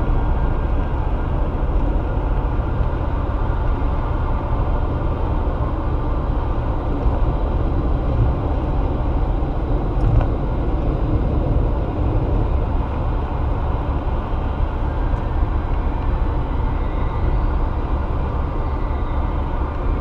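A car driving at highway speed: a steady rumble of tyre, road and engine noise.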